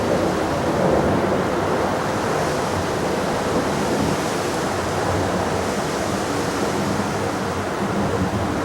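Airbus A350's Rolls-Royce Trent XWB jet engines heard from outside at take-off power, a steady roar that eases off slightly.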